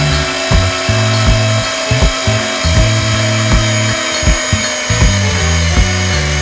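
Canon EOS Rebel X S's built-in film-advance motor whirring steadily as it prewinds the whole roll onto the take-up spool, under background music with a steady bass beat.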